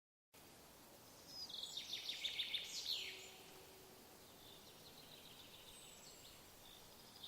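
Songbirds singing in a forest in early morning: a bright, rapid trilling song with quick downward-sweeping notes, loudest from about one to three seconds in, then fainter trills and a few thin high whistles over a soft steady hiss of background noise.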